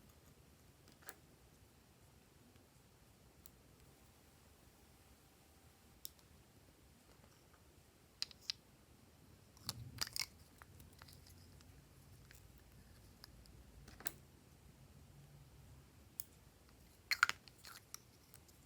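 Hands working glossy slime, giving a few faint, scattered clicks and crackles, the loudest cluster near the end.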